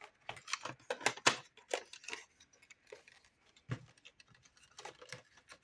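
Irregular light clicks, taps and rustles of packaging and small items being handled, with a duller knock a little past the middle.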